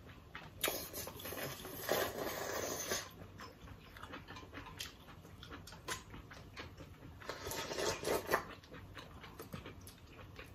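Close-up eating sounds of ramen and green mussels: wet chewing and lip smacking with scattered small clicks, and two longer slurps, about two seconds in and again near eight seconds.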